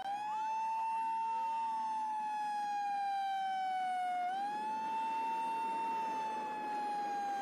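Emergency vehicle siren sounding one long held tone that slowly falls in pitch, jumps back up about four seconds in, then slowly falls again. A second, fainter siren sweeps up and down during the first two seconds.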